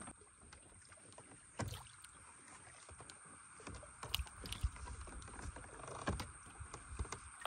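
Faint water lapping against a small wooden boat, with a few soft knocks on the hull: one a little under two seconds in, more around four and six seconds in.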